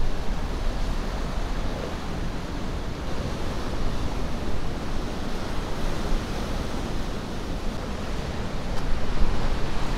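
Ocean surf: a steady wash of breaking waves with a low rumble of wind, swelling slightly near the end.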